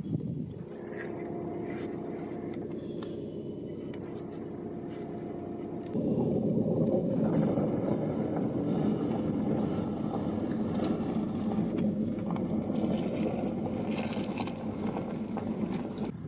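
A vehicle engine running steadily with a low hum; about six seconds in it gets louder and rougher and stays so.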